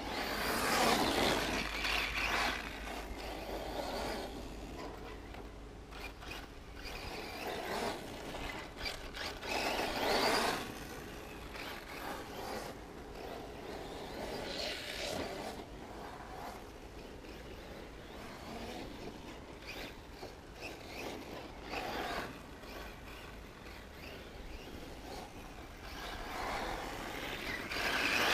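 Radio-controlled off-road cars running on a dirt track; the noise swells and fades several times as they pass close by. Wind rumbles on the microphone for the first few seconds.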